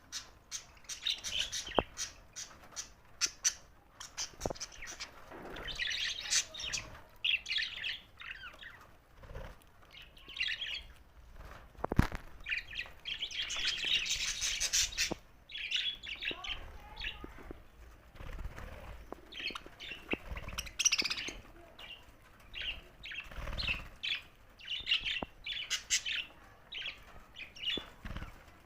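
Several budgerigars chirping and chattering in quick, busy bursts, with scattered sharp clicks and one louder click about twelve seconds in.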